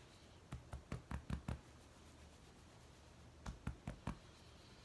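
Fingertips tapping on the K27 points just below the collarbones: a quick run of about six soft taps, a pause of about two seconds, then about five more.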